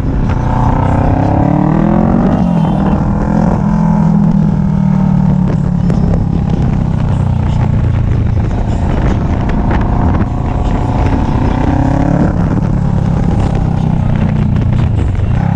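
Motorcycle engine under way, its pitch climbing as it accelerates and dropping at a gear change about two seconds in, then running steadily before climbing again near the end.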